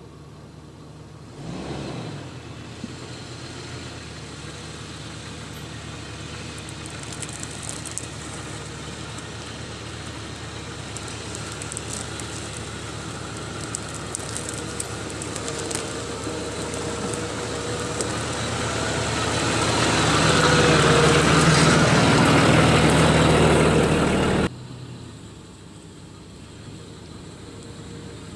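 A motor vehicle's engine running steadily and growing louder over about twenty seconds, as if it is revving up or coming closer. It cuts off abruptly near the end.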